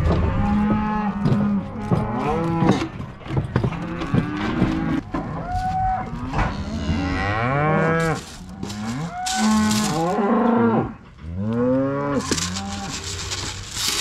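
A pen of beef cows and calves mooing, many calls overlapping and arching up and down in pitch, with a few knocks mixed in.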